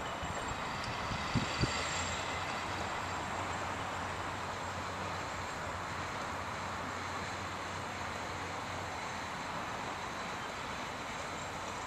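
Twin Suzuki outboard motors running at low speed as the aluminum boat moves off, a steady rumble. Two sharp knocks come about a second and a half in.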